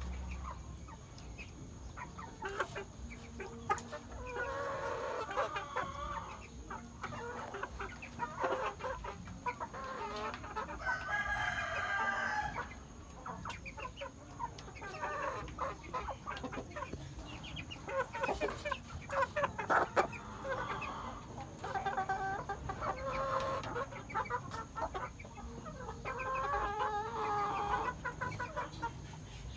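Chickens clucking, with a longer rooster crow about ten seconds in, and scattered short sharp taps through the calls.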